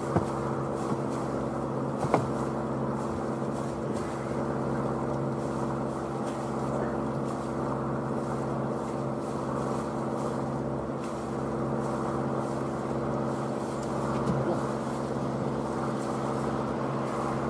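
Boat engine idling steadily while moored, with a brief knock or two early on.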